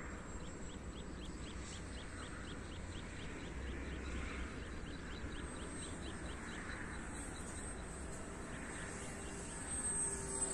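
Rapid rhythmic chirping, about five chirps a second, over low wind rumble on the microphone. Near the end the high whine of the RC plane's electric motor grows louder as the plane flies past.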